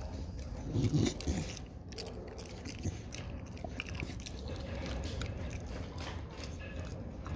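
A dog gnawing and crunching a rawhide chew held between its paws, with short crackling bites all through and the heaviest bites about a second in.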